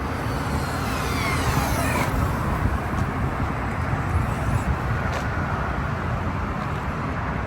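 Vehicle noise on a street: a steady low rumble, with a falling whine about one to two seconds in.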